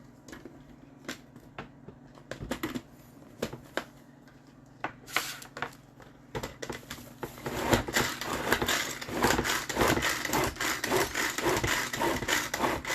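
Tupperware Power Chef pull-cord chopper chopping onion, garlic and parsley. A few scattered clicks and knocks, then from about five seconds in a fast, dense rattle of the cord being pulled again and again and the blades chopping, which grows louder near the end.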